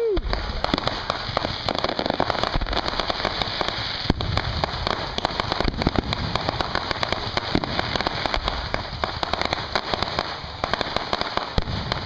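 Fireworks crackling in a dense, continuous run of rapid pops.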